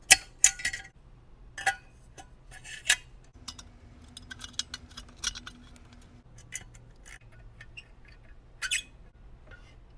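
Metal clicks and clinks as a V-band exhaust clamp is handled, fitted around a pipe joint and tightened with a hand tool, in scattered sharp taps with a few louder ones near the start and about nine seconds in.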